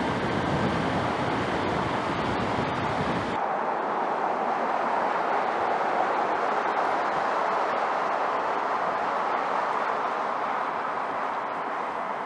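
Steady rush of tyres and wind from a pickup truck driving at road speed. About three seconds in the deep rumble drops away, leaving a lighter, airier rush.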